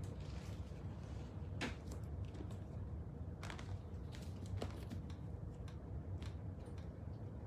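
Steady low room hum, with a few scattered light clicks and taps a second or so apart.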